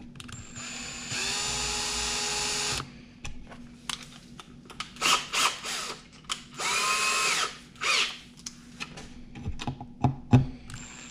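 Drill driving small Phillips screws into a keyhole picture hanger in wood: two short runs of the motor's steady whine, the second briefly rising in pitch as it spins up, with clicks and knocks of handling in between.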